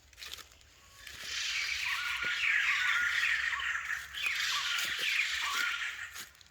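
White-crested laughingthrush calling: a loud harsh cackling chatter that starts about a second in, breaks off briefly past the middle and resumes in a second bout.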